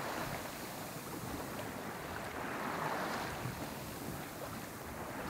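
Water rushing and splashing along a sailboat's hull under sail, swelling and easing in waves, with wind buffeting the microphone.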